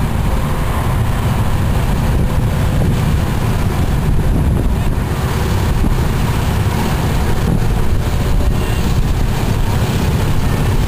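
Quad ATV engines running as the machines pass slowly at parade pace, under a heavy, unsteady low rumble of wind on the microphone.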